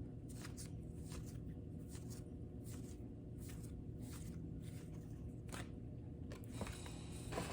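Baseball cards being slid off a stack one after another: faint, soft brushing sounds of card stock about two a second, over a low steady hum.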